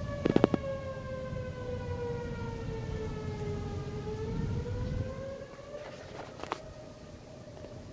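Outdoor tornado warning siren wailing: one steady tone whose pitch sinks slowly and then rises again, over a low rumbling noise. A few sharp clicks come just after the start and again about six seconds in.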